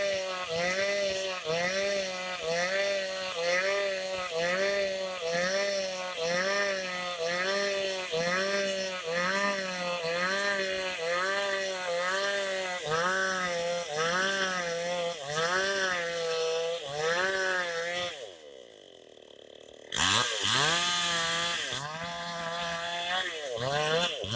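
Chainsaw engine revving in a steady rhythm, its pitch rising and falling a little over once a second. About eighteen seconds in it winds down and goes nearly quiet. About two seconds later it is loud again and revving on.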